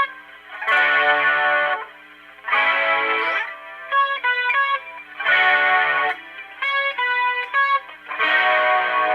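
Electric guitar played through a wet channel with distortion, chorus and reverb: four strummed chords alternating with short picked single-note phrases.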